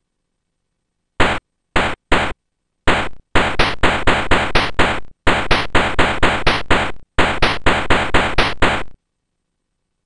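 Electronic hi-hat sample played in the MilkyTracker tracker: a few scattered hits, then a steady run of about four short, crisp hits a second with two brief breaks.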